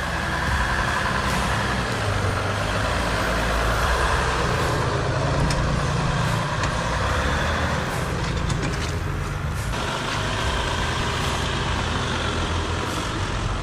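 Jeep Wrangler's EcoDiesel engine running at low revs under load as the jeep crawls over a log and rocks on 40-inch tires. There are a few knocks and clicks about eight to nine seconds in.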